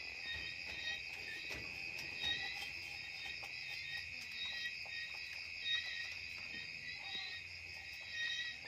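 Steady, high-pitched chirring of insects, crickets by its sound, with scattered faint clicks and rustles as a rabbit handles hay on its cage floor.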